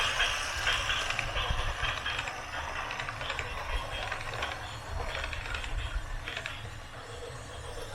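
Small motors and gears of a radio-controlled backhoe loader model working, a rapid mechanical clicking rattle over a low rumble that eases off near the end.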